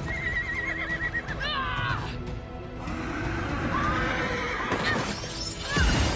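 Unicorns neighing, horse whinnies with a falling, wavering pitch heard a couple of times, over background music.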